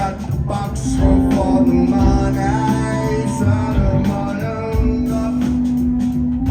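Live band playing an instrumental stretch of a rock song: drum hits, a steady bass line and long held notes.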